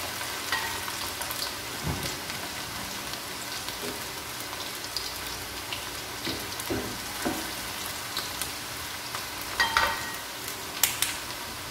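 Sliced tempe deep-frying in hot oil in a wok: a steady crackling sizzle, with a wooden spatula stirring now and then. Two sharp knocks near the end.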